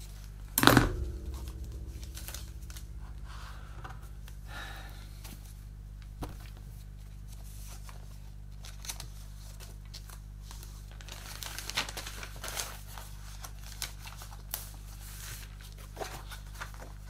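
A sharp knock about half a second in, then intermittent crinkling and rustling of a thin plastic bag, with small clicks, as a model kit's decal sheet is handled in its cellophane bag.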